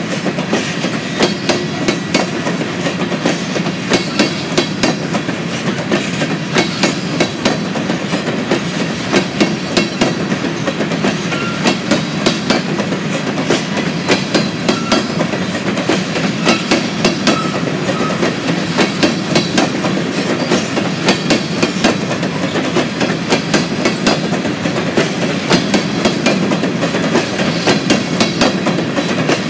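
Freight train cars rolling past, their wheels clattering over the rail joints in a steady, rhythmic clickety-clack.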